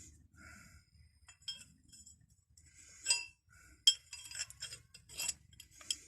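Old steel hand tools clinking and knocking against each other as they are handled, a string of sharp metallic clinks with the loudest about four seconds in.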